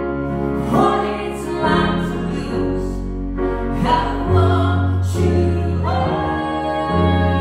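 Live song: a grand piano and a violin playing together, with a voice singing held notes over them.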